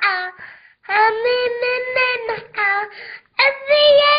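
A young girl singing a revolutionary chant unaccompanied in a high child's voice, in short phrases with brief breaths between them.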